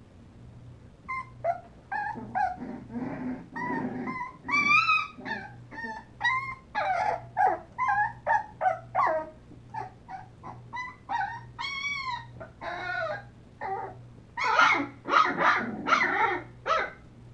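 Young puppies whining and yelping: many short, high calls in quick succession, some rising and falling in pitch, with several overlapping in a busier burst near the end.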